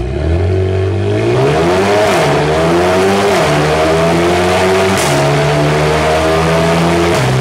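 Mercedes-AMG A35's turbocharged four-cylinder accelerating through a full Akrapovič exhaust with the particulate filter removed. The exhaust note climbs in pitch and drops back at upshifts about two and three and a half seconds in, gives a sharp crack about five seconds in, then holds a fairly steady pitch.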